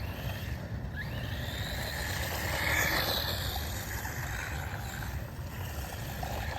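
Electric motor and tyres of a 4WD electric RC buggy whining and hissing as it drives, growing louder to a peak about halfway through as it passes close, then easing off.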